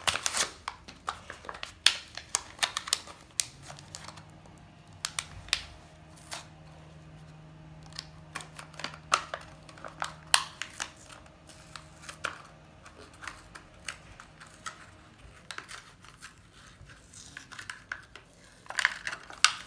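Close handling noise: a paper receipt and a small bag crinkling and rustling in the hands, with many scattered sharp clicks and crackles.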